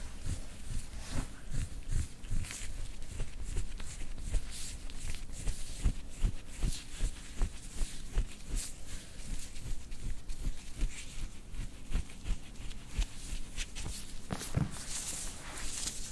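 Bodywork on a chiropractic treatment table: irregular soft low thuds with rustling of clothing and padding, the rustling louder near the end.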